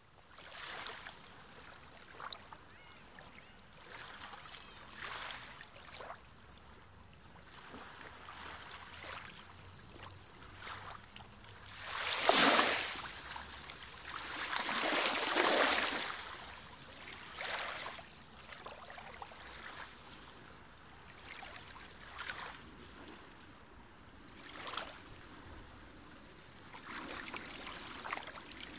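Underwater sound picked up through a camera housing during spearfishing: a low, steady wash of water with soft swells of rushing noise as the diver and gun move. The two loudest swells come about twelve seconds in, a short one, and a longer one a few seconds later.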